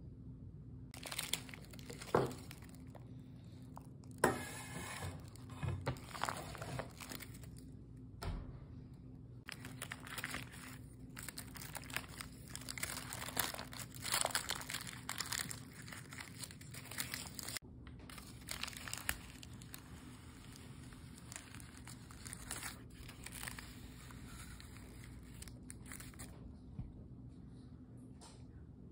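Baking parchment paper crinkling and rustling in irregular bouts as it is handled and peeled back from the sides of a baked cheesecake.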